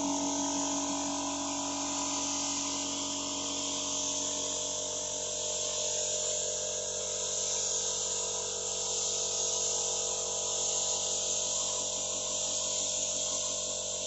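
Compressed-air spray gun hissing steadily as it sprays paint.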